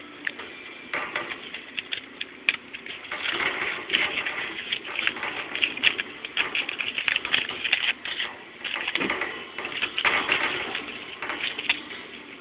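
Crumpled paper crinkling and rustling as it is shaken in a hand and batted by kittens' paws, in uneven bursts of crackles.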